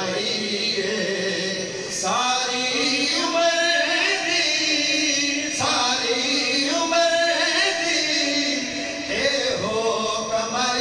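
A man singing a Punjabi naat into a microphone: long drawn-out phrases that waver in pitch, a new phrase beginning about two seconds in, again near the middle, and once more near the end.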